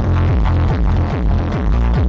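Loud electronic dance music with heavy bass and a steady beat, marked by repeated falling bass slides, played through a carnival truck's sound system.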